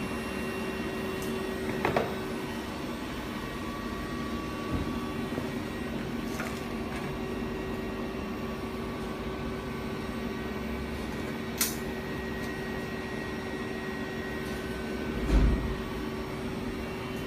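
Steady machine hum made of several held tones, with a few faint clicks, one sharp click a little before the middle, and a low thump near the end.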